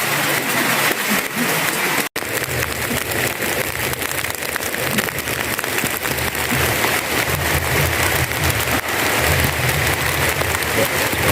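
Heavy downpour: a dense, steady hiss of rain. It drops out for a split second about two seconds in, and a low hum runs under it after that.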